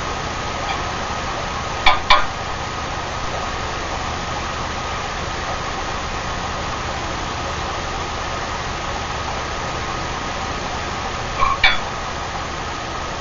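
Steady hiss of a glassworking bench torch flame, with two quick pairs of sharp clicks, about two seconds in and again near the end, from glass or a tool knocking.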